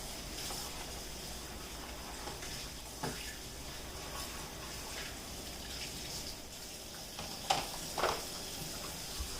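Kitchen tap running steadily into a sink while dishes are washed, with a few clinks of dishes: one about three seconds in and two close together near the end.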